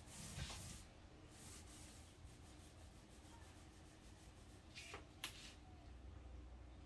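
Faint soft rubbing of a small paint roller being rolled over a wooden cabinet, with a sharp click about five seconds in.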